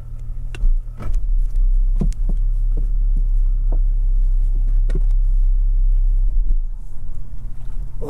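An engine running steadily with a low hum, with scattered short knocks and clicks over it.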